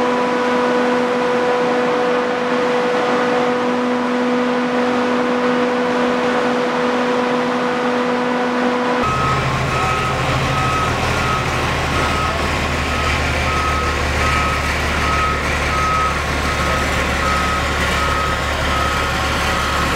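A steady, even hum for about nine seconds, then an abrupt change to the low rumble of heavy road-roller engines running, with a reversing alarm beeping about one and a half times a second.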